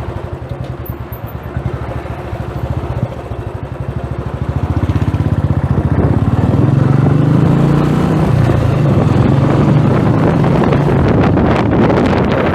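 Royal Enfield Thunderbird's single-cylinder engine thumping as the bike rides off, picked up by an earphone's inline mic along with wind noise. It gets louder about five seconds in as the bike gathers speed.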